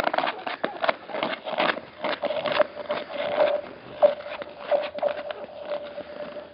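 Footsteps crunching on thin, newly formed lake ice, with the ice cracking underfoot and singing: a thin steady ringing tone runs under the crunches. One crack, about four seconds in, is louder than the rest.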